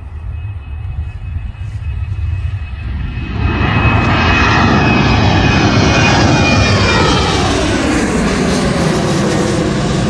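Boeing 737 twin turbofan engines at takeoff thrust as the airliner climbs away overhead. The noise builds and becomes loud about three and a half seconds in, with a high steady whine, and its tones slide downward as the plane passes over.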